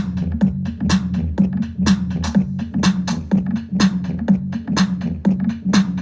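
Electronic dance music with a heavy, steady bass line and a drum-machine beat of about two hits a second, played loud through a Q Acoustics BT3 speaker system and subwoofer.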